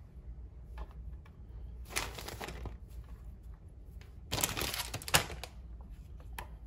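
Crisp rustling and crunching as shredded lettuce is handled and laid onto the sandwich, in two short bursts about two seconds and about four and a half seconds in, with a few light clicks between.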